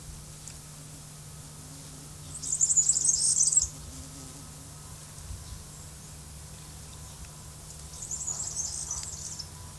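Birds chirping in two short high-pitched bursts, each about a second long, over a steady low hum.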